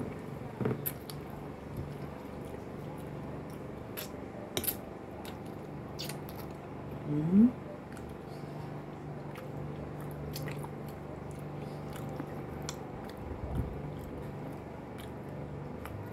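Two people eating at close range, chewing with wet mouth sounds and scattered light clicks and taps of a fork on a glass plate. About seven seconds in there is a short, rising vocal 'mm'.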